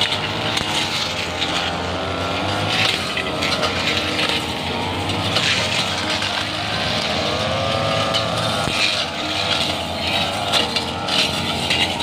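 Backpack brush cutters running in overgrown ferns, more than one engine heard at once, their pitch rising and falling as they are revved while cutting.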